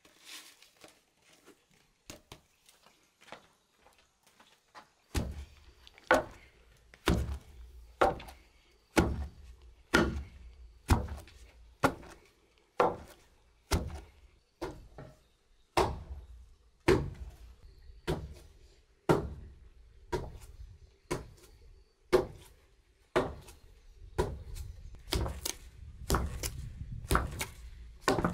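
Long wooden pestle pounding steamed sticky rice in a wooden mortar, a heavy dull thud about once a second that starts about five seconds in; near the end the strokes come closer together. The rice is being beaten into dough for banh giay.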